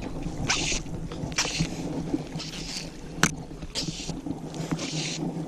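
Fly line being stripped in by hand on a 6-weight fly rod, a short hissing swish with each pull, roughly once a second, with one sharp click about three seconds in.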